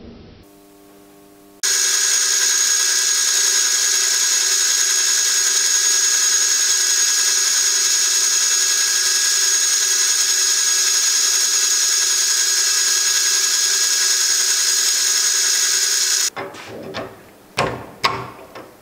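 Matsson Zetterlund VF600 milling machine cutting cast iron with a large spiral-fluted milling cutter: a steady whine with a high hiss. It starts abruptly about a second and a half in and stops suddenly near the end. After it come a few knocks and clatters of metal being handled at the machine vise.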